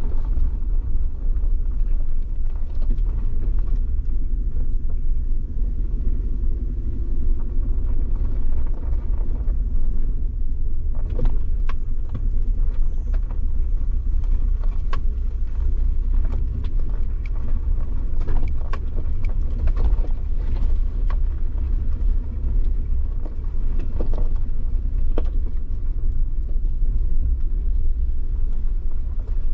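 Suzuki Jimny driving over a rough off-road track: a steady low rumble of engine and tyres, with scattered knocks and clicks throughout.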